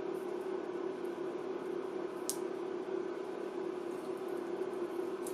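Molten lead-free solder and flux sizzling and crackling in a solder pot as a flyback transformer's pins are held in the bath to desolder it, over a steady low hum. A single sharp click comes a little over two seconds in.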